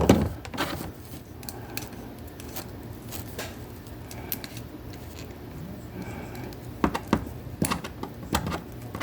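S.H.Figuarts Ultraman Z plastic action figure being handled and posed, its arms moved up and down, with scattered small clicks and knocks of plastic, a few louder ones near the end.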